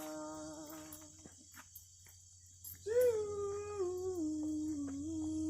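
A singer's voice holding a long wordless note that stops about a second in. About three seconds in, a second long note begins, steps down in pitch and is held. Crickets chirp steadily throughout.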